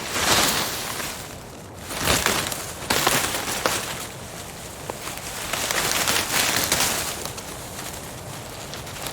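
Several wood-cracking sound effects, splintering and crackling in noisy bursts, over a forest background ambience. One burst comes right at the start, others come around two and three seconds in, and a longer swell comes past the middle.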